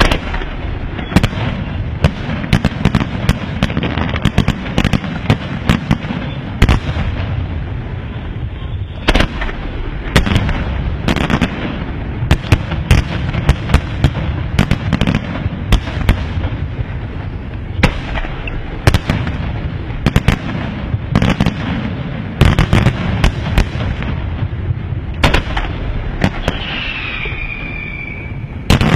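Aerial firework shells bursting in rapid succession: many sharp bangs over a continuous low rumble, with a brief falling whistle near the end.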